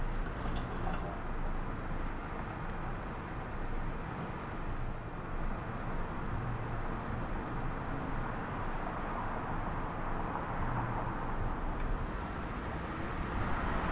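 Steady road and engine noise of a car driving through city traffic, a little louder near the end.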